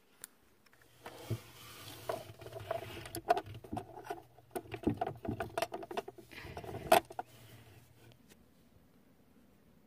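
Small plastic doll accessories handled by hand, giving a busy run of irregular clicks, taps and knocks over rustling. The loudest knock comes about seven seconds in, and the sounds die away near the end.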